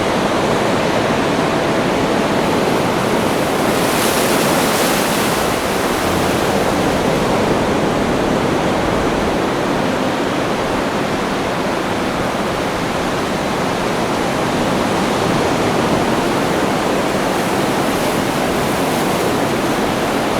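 Rushing water making a steady, even roar, with no lull or surge.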